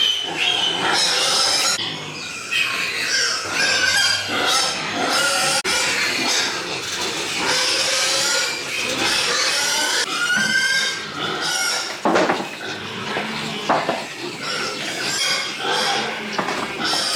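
A group of pigs squealing and grunting, with many short, high calls overlapping without pause.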